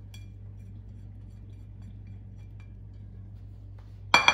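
A few faint ticks of a silicone spatula scraping lemon zest off a ceramic plate over a steady low hum, then near the end a sharp clatter as the plate and spatula are set down on the stone countertop.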